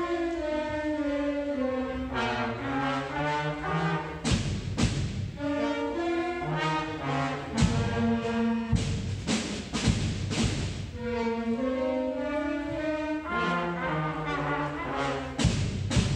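School concert band playing a piece: trumpets, saxophones, trombones and flutes holding and moving notes together, with drum hits now and then.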